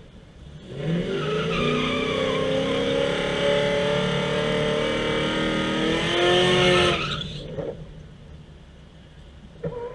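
Car engine running at high revs with its tyres squealing, for about six seconds. The engine note climbs near the end, then cuts off.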